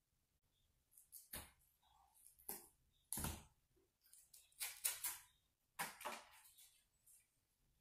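Faint, scattered rustling and clicking from hands working at a ceiling light fixture and its wiring, with a couple of light knocks about a second and three seconds in, and a cluster of sharper rustles near the middle.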